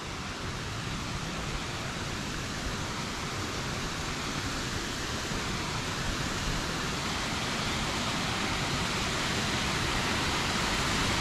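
Water pouring over a small stone dam's spillway, a steady rushing that grows gradually louder as the microphone approaches it.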